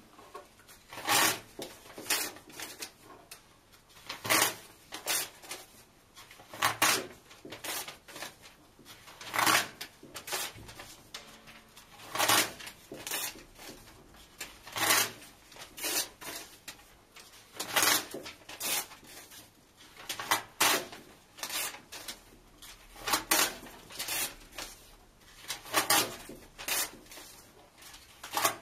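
Paper tearing: book pages ripped out and torn in half one after another, a loud tear about every two and a half to three seconds with quieter rips and rustles between.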